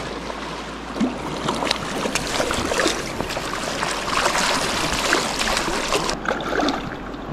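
Creek water rushing and splashing, with a busy run of small splashes from about a second in that dies away about six seconds in.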